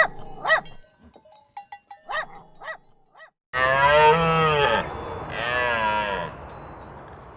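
A farm animal calling: two long, wavering calls, the first starting about halfway through and the second right after a short break, with a fading tail. A few short faint blips come before them.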